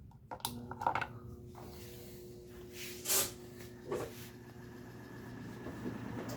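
Qualitas Q600P chromed 130 W wall fan's electric motor starting and spinning up: a few clicks near the start, then a steady motor hum with a short burst of noise about three seconds in, growing gradually louder as the blades gather speed.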